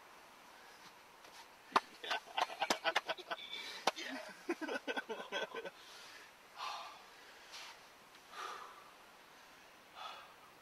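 A freshly shot wild turkey flopping in the grass, its wings beating in irregular thumps and flutters for about four seconds. Afterwards a person breathes hard, several heavy breaths about a second apart.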